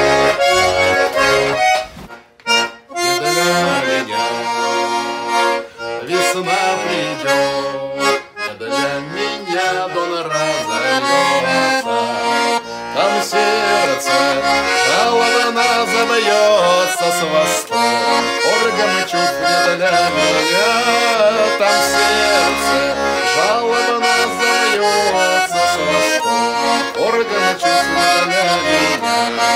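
Background music led by an accordion playing a melody, with a short break about two seconds in.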